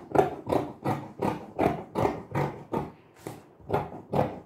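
Fabric scissors snipping through printed fabric laid on a table, a steady run of cuts about two to three a second.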